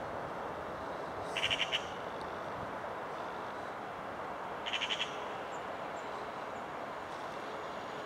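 A bird calls twice, each time a quick run of four or five short high notes, about a second and a half in and again near five seconds, over a steady background hiss.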